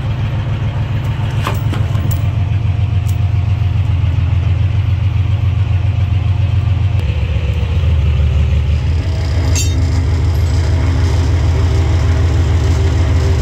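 Crane engine running steadily with a low hum while it lifts the old propeller shaft. Its note shifts about eight seconds in, and a couple of sharp clicks come through, one near the start and one near the middle.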